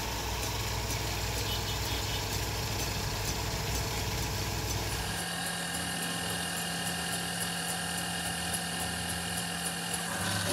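Wood lathe motor running steadily, turning a wooden shaft between centres. Its hum changes about five seconds in, the deep rumble dropping away and a steadier higher tone taking over.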